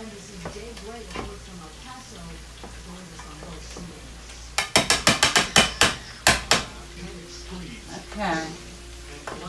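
Metal tongs stirring sautéed collard greens in a skillet over a faint frying sizzle, with a quick run of about ten sharp, ringing clacks about halfway through.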